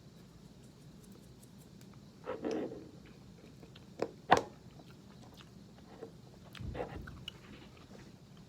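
A person chewing food in a few short spells, with two sharp clicks about four seconds in, the second the loudest sound.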